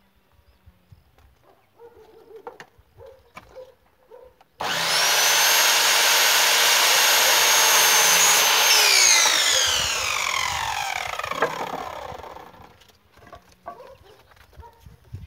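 Electric power saw cutting wood: the motor starts abruptly and runs for about four seconds, then the blade winds down over several seconds after the trigger is released, with a knock near the end. A few light knocks of handling the wood come before it.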